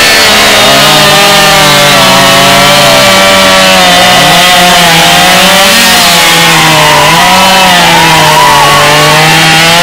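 Chainsaw running loud at full throttle and cutting through wood, its engine pitch dipping and recovering under the load of the cut.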